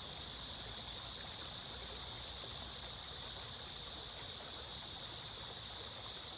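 Steady, even high-pitched hiss of outdoor ambience, with a faint low rumble underneath.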